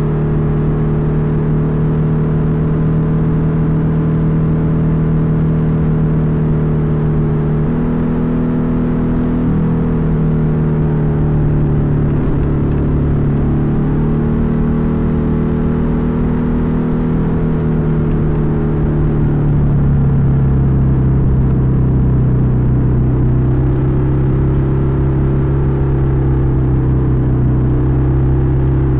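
Suzuki Skydrive 125 scooter's single-cylinder four-stroke engine and carburettor intake running under way, heard from a recorder placed by the air-filter box. A steady drone that shifts pitch slightly a few times, then settles to a lower, slightly louder note about twenty seconds in.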